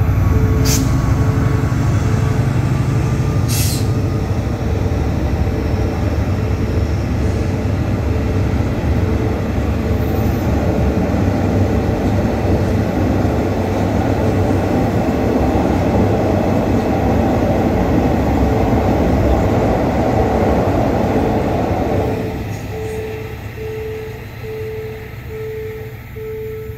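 Diesel-hauled passenger train of the State Railway of Thailand passing: a steady low rumble of locomotive and carriage wheels on the track that drops away abruptly near the end as the last carriage goes by.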